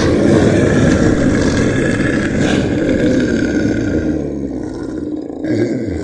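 Dinosaur roar sound effect: a long, loud, rough roar that fades toward the end, with a lower growl near the end.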